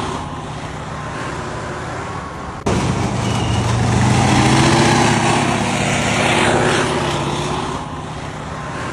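T-72 tank's V-12 diesel engine running with a steady low drone under a rushing noise. About a third of the way in the sound cuts to a louder shot, where the engine note swells and rises slightly, then falls back.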